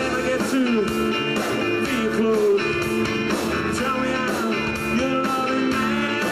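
Rock band music with electric guitar and a steady drum beat.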